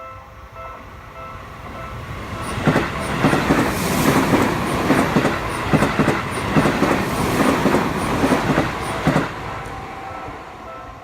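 Seibu Shinjuku Line electric commuter train passing over a level crossing, its wheels clacking over rail joints in a quick, regular beat for about seven seconds. A Japanese crossing warning bell rings in a steady pulse of about two strikes a second. The train covers the bell while it passes, and the bell is heard again near the end.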